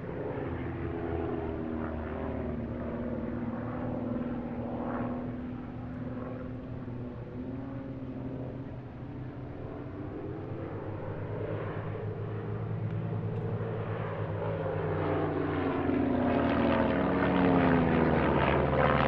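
Engines of formation display aircraft flying over, a steady drone whose pitch bends as they pass, growing louder near the end.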